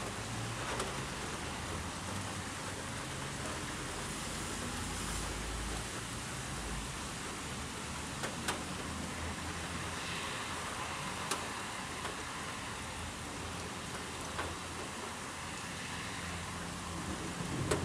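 Steady rain during a thunderstorm, with a few sharp ticks of drops striking a nearby surface; a rumble of thunder begins right at the end.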